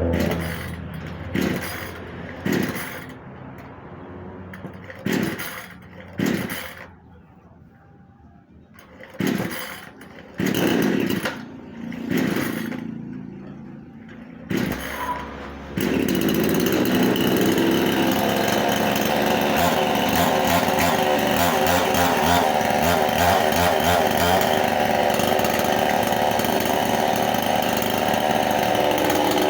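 Two-stroke chainsaw being pull-started: a series of short bursts with quiet gaps for about the first fifteen seconds, then the engine catches suddenly and runs steadily.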